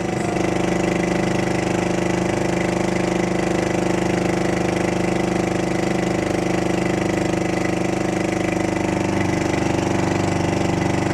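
Outrigger boat (bangka) engine running steadily at cruising speed, one constant engine note with a regular low throb.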